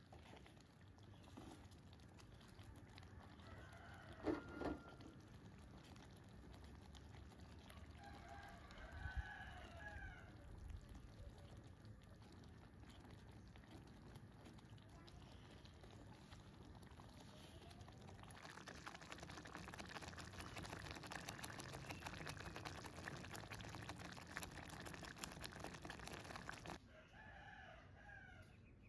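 A rooster crowing faintly, a couple of short calls in the first third. In the second half a soft steady hiss from the cooking pan comes in and cuts off suddenly near the end.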